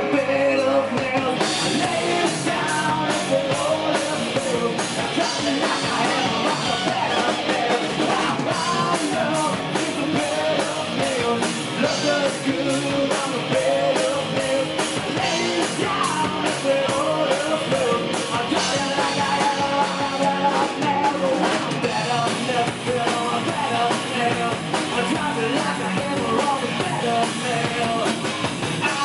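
Hard rock band playing live: electric guitars and drums keeping a steady beat, with a singer's lead vocals over them.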